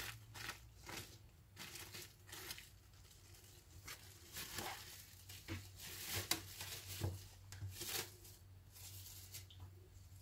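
Thin plastic bag crinkling as it is peeled off a bowl of risen bread dough, in an irregular run of short crackles.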